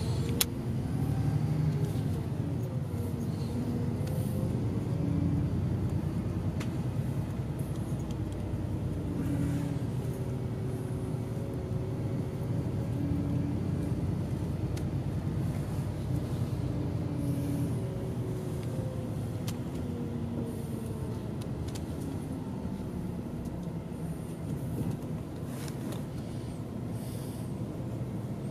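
Highway coach bus on the move, heard from inside the cabin: a steady low engine and road rumble with a faint whine that slowly rises and then falls in pitch.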